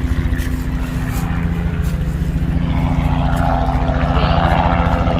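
Propeller airplane's piston engine droning steadily, growing gradually louder as it comes nearer.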